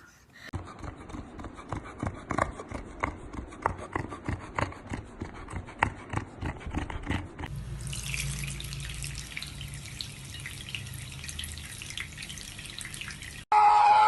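Water splashing and dripping in quick irregular clicks, then running steadily like a tap into a sink. Near the end it cuts off suddenly and a louder sound with steady tones begins.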